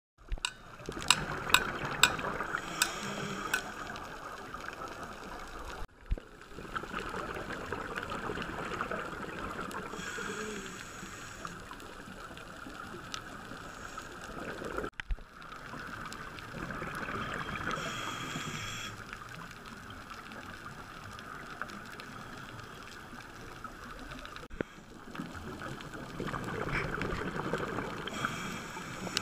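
Underwater sound of scuba diving: a diver's regulator breathing and exhaled bubbles, swelling and fading about every nine seconds. A few sharp clicks come in the first two seconds.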